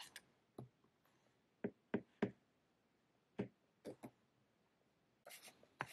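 Faint, irregular light taps and clicks of hands handling things on a desk, about seven in all, then a short scratchy rustle near the end.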